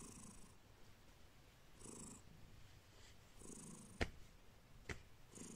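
Tortoiseshell cat purring softly, the purr swelling and fading with each breath, about one breath every two seconds. Two sharp clicks come about four and five seconds in.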